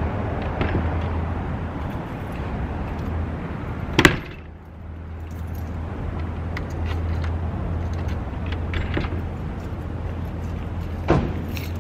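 Keys jangling and clicking at a front door, with a sharp knock about four seconds in and another near the end, over a steady low hum.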